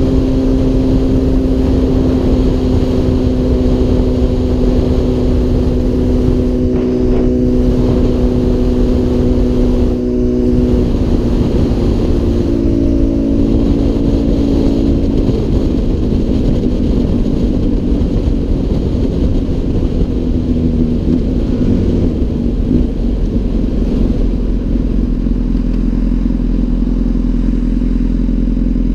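Honda CBR1000RR inline-four engine holding a steady note at cruising speed under heavy wind noise on the helmet-mounted microphone. About eleven seconds in the engine note drops and shifts a few times, and it settles into a lower note for the last several seconds as the bike slows in traffic.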